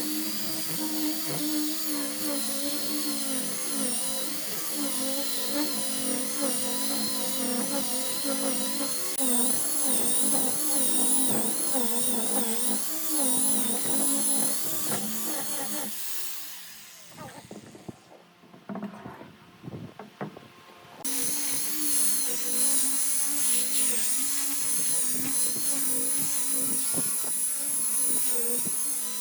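Electric woodworking power tool running with a high motor whine, its pitch wavering as the load on it changes. It winds down just past halfway and, after a few quiet seconds, is running again.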